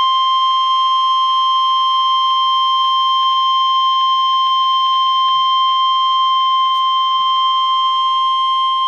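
NOAA Weather Radio 1050 Hz warning alarm tone: one loud, steady, unbroken high tone. It signals that a warning message, here a severe thunderstorm warning, is about to follow.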